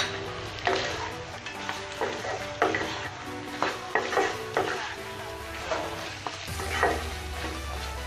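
Pork pieces frying and sizzling in oil in a nonstick kadai while being stirred with a wooden spatula, which scrapes through the pan about once a second.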